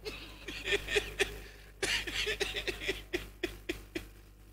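Laughter in a run of short repeated bursts, a few a second. It eases briefly, breaks out again louder about two seconds in, then trails off near the end.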